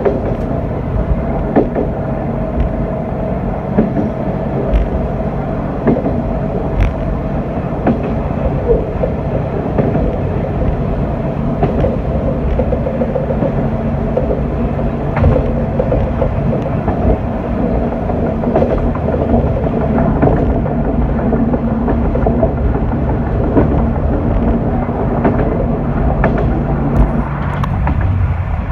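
Diesel railcar running along single track, heard from inside the cab: a steady engine drone with sharp clicks of the wheels over rail joints every second or two.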